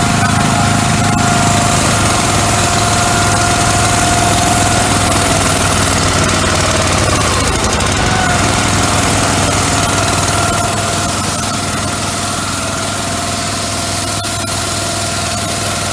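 Small petrol engine of a van-mounted pressure washer running steadily, with a constant high whine and a hiss over the engine hum. It gets slightly quieter in the last few seconds.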